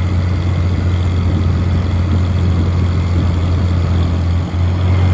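Tractor engine running steadily at a low hum while pulling a field cultivator through a bean field in second gear at about 4 mph, with a brief dip in level about four and a half seconds in.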